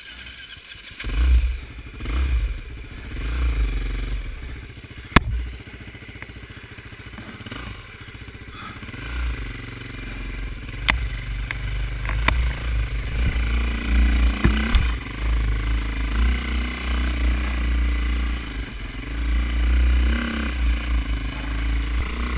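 Dirt bike engine revving in short bursts, then running harder and more steadily as it climbs through a tight, rough trail corner. A few sharp knocks are heard along the way.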